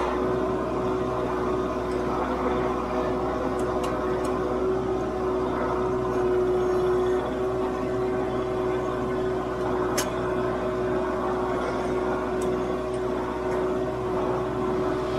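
Kubota MX5400 tractor's diesel engine running steadily under load, with a constant droning tone, while it drags a land plane through dirt. A few faint clicks, the sharpest about ten seconds in.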